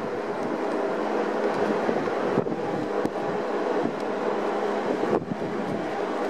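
Wind buffeting the microphone on the open deck of the BC Ferries vessel Salish Eagle under way, over the steady drone of the ferry's engines.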